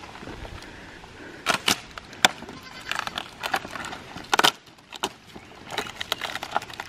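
Coil of black poly pipe being rolled and unwound across gravelly dirt, a steady low rolling noise with scattered sharp plastic clicks and knocks.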